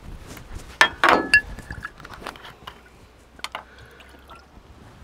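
A few sharp knocks and a clink about a second in as a glass wine bottle is handled, then white wine being poured from the bottle into a mug near the end.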